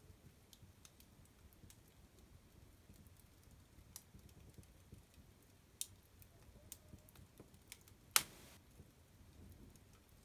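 A fire crackling: faint, scattered sharp pops, with one louder pop about eight seconds in followed by a brief hiss.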